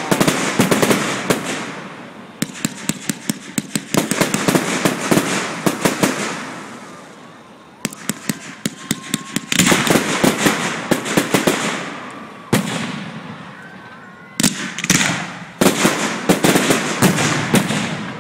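Aerial fireworks launching and bursting in rapid volleys: sharp bangs with crackling between them. Fresh clusters start about every two to three seconds.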